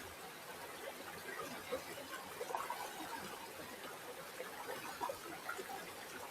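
River water flowing, a steady rush dotted with many small gurgles and bubbling blips.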